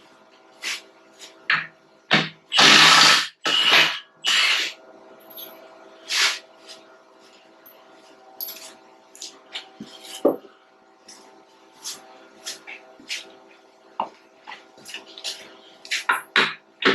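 Power tool run in short bursts, two loud ones a few seconds in, with scattered clicks and knocks of tools and metal parts in between, over a faint steady hum: bolts being taken out of the roller's rubber isolators.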